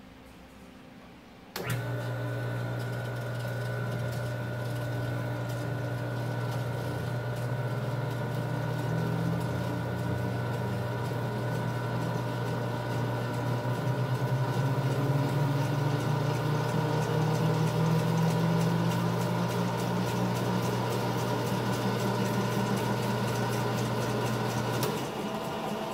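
Lap wheel's electric motor switched on about a second and a half in, then running with a steady low hum and a thin whine as it spins a glass plate on its turntable. It gets a little louder partway through, and the hum changes near the end.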